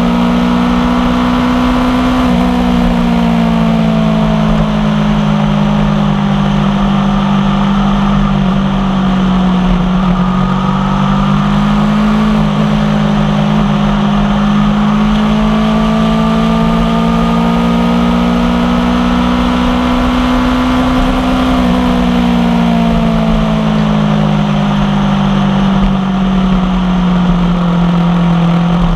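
Aprilia Tuono V4 1100 Factory's V4 engine through an unbaffled Tech 1 carbon exhaust, running at steady road speed under way. The engine note eases down briefly near the start, climbs slowly through the middle and drops back about three quarters of the way in, over a steady rush of wind and road noise.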